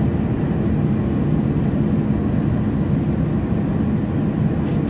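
Airliner's jet engines running at low taxi power, heard inside the cabin as a steady low hum.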